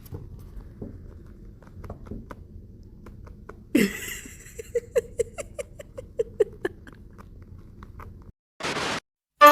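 A cat chewing, a run of crisp, evenly spaced bites about three a second, after a sudden short sound a little under four seconds in. A brief burst of hiss-like noise comes near the end.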